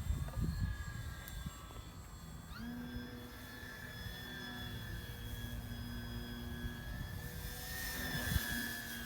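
Radio-controlled model airplane's motor and propeller whining steadily in flight. The pitch steps up about two and a half seconds in as the throttle is opened, with low wind rumble on the microphone.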